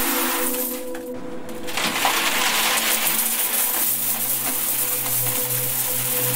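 A stream of coins pouring and clinking into a metal bin, over steady droning tones; a lower hum joins about four seconds in.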